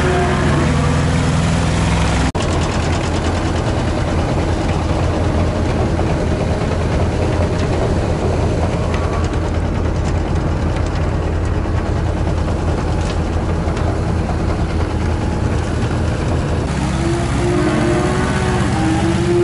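Tractor-drawn silage feed wagon machinery running with a steady low engine hum. Dairy cows moo at the start and again near the end.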